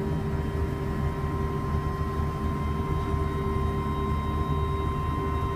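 Steady machinery drone: a continuous low rumble with a few constant hum tones on top, unchanging throughout.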